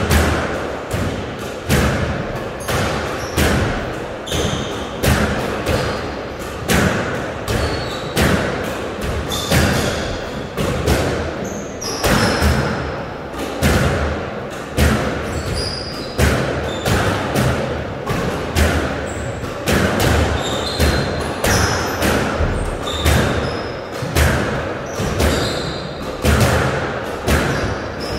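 Squash rally: the ball struck by rackets and smacking off the court walls in a steady back-and-forth, roughly one hit a second, each with a short echo. Brief high squeaks from court shoes on the wooden floor come in between the hits.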